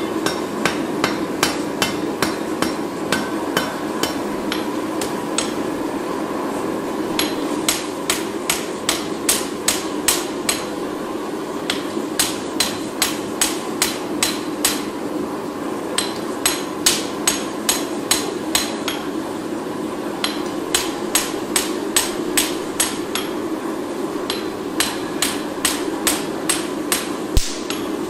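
Hand hammer forging a red-hot Japanese knife blade on an anvil: sharp metal-on-metal blows, about three a second, in runs broken by short pauses, over a steady hum.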